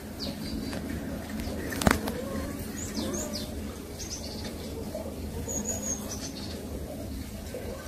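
Birds chirping in short, high calls every second or so over a steady low rumble, with a single sharp knock about two seconds in.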